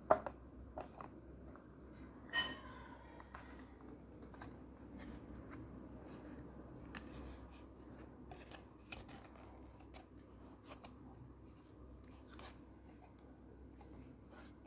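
Faint handling of a smartwatch box and its cardboard insert: scattered light clicks and rustles, with sharper clicks at the start and about two seconds in.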